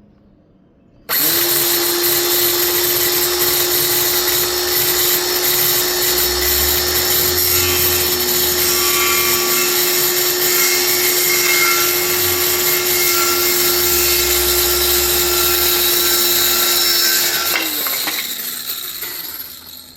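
Ryobi ONE+ 18V cordless 5 1/2-inch circular saw with an 18-tooth blade cutting through a wooden board. It starts suddenly about a second in, runs steadily for about sixteen seconds and spins down near the end. The cut is a smooth one.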